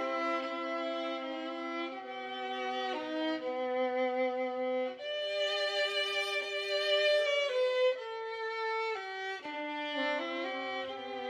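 Background music: a violin playing a slow melody of held notes that change every second or so.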